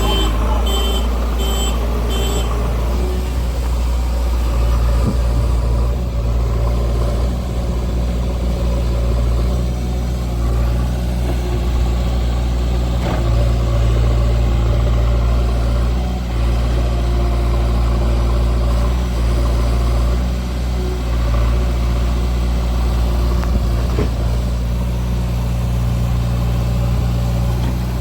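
Backhoe loader's diesel engine running steadily under work. Its reversing alarm beeps about twice a second and stops about two seconds in.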